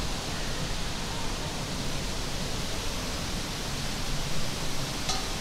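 Steady rushing noise with no distinct pattern, and a short sharp click near the end.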